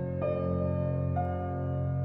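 Soft, slow background music on piano-like keyboard, with sustained notes; new notes enter twice.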